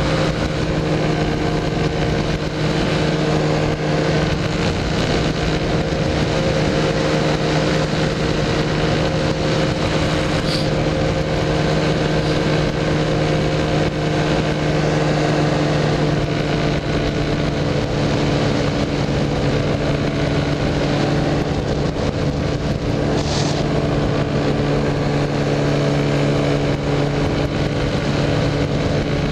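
Powered parachute's engine and propeller running steadily in cruise flight, a constant drone with several steady tones.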